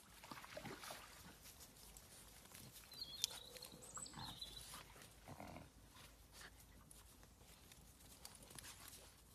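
Faint sounds of small dogs at rough play, a miniature dachshund and a French bulldog wrestling, with a few short, low vocal sounds from the dogs and a brief high squeak about three seconds in.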